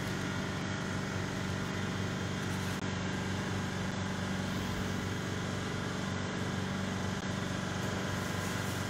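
Steady low machine hum with an even hiss behind it, unchanging throughout: the background running of equipment in a commercial kitchen.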